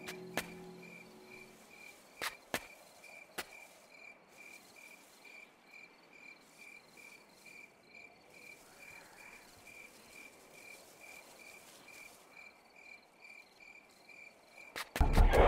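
A cricket chirping steadily, nearly four high chirps a second, with a few sharp clicks in the first few seconds. Music comes in loudly just before the end.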